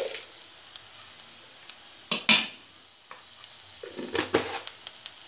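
A spatula scraping and knocking in a frying pan, over light sizzling from the elephant apple pickle mixture cooking. The sharpest scrape comes about two seconds in, and a few more knocks follow near four seconds.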